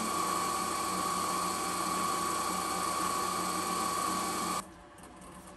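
Small CNC lathe running with a steady whine while a twist drill in a drill chuck bores into a spinning aluminum shaft. The sound stops suddenly about four and a half seconds in.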